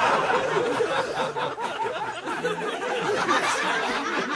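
Live audience laughing and chattering, many voices overlapping, easing off a little over the first couple of seconds.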